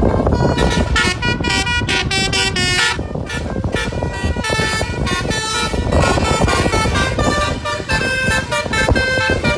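Bus 'basuri' telolet horn, a multi-tone musical air horn, playing a fast run of short notes that jump between pitches, over a steady low rumble.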